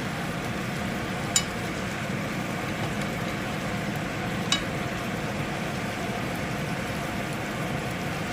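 Chicken skewers sizzling as they fry in a pan, a steady hiss, with two sharp clicks, about a second and a half in and again about three seconds later.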